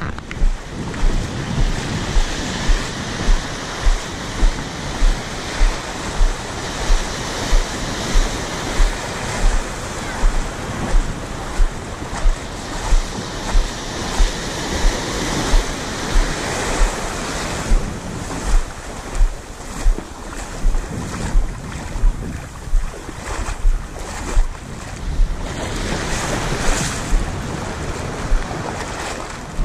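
Small waves washing and breaking at a sandy shoreline, with wind buffeting the microphone. Under it runs a regular low thump, about one and a half a second.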